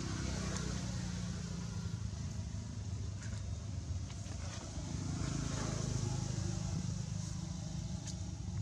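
A motor vehicle's engine running steadily nearby, a low hum that grows a little louder after the middle and then eases.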